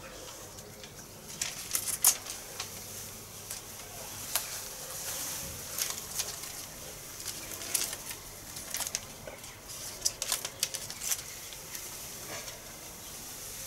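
Paper stencil sheets being handled and pressed onto a board: rustling and crackling paper with scattered sharp ticks, the loudest about two seconds in.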